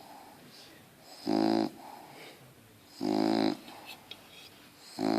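Bulldog snoring in a regular rhythm: three loud snores of about half a second each, roughly every two seconds, with a faint breath between them.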